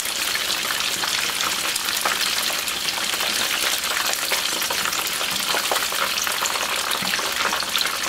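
Cornstarch-coated tilapia fillet pieces deep-frying in hot oil: a steady, dense sizzle and crackle. This is the first frying, which cooks the fish to about 70%.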